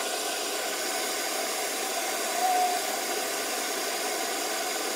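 Electric kettle heating water: a steady hiss that holds an even level, with one brief faint tone a little under halfway through.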